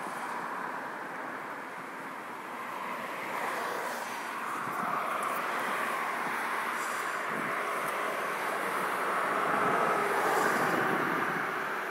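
Steady rushing noise of road traffic, growing a little louder near the end.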